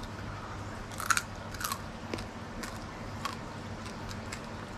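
A person biting into and chewing a crispy cooked scorpion, with a few sharp, irregular crunches.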